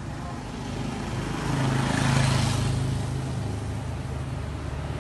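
Road traffic: a motor vehicle's engine hum and tyre noise swell about two seconds in as it passes, then fade to a steady background of traffic.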